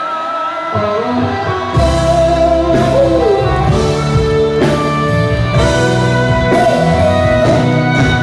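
Live pop-rock band music: electric guitar, bass, keyboards and drum kit playing a song, with a held melody line over the top. The bass comes in about a second in and the drums and full band about two seconds in.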